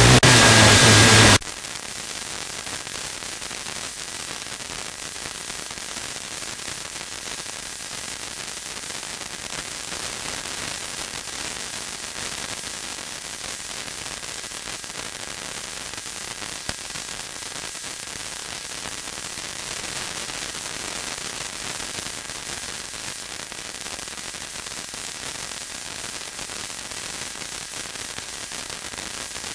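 Steady FM static hiss from a Blaupunkt ACR 3250 car radio tuned to a weak, distant FM station that is on air but carrying no programme (dead air). A loud burst of audio cuts off abruptly about a second and a half in, leaving the hiss.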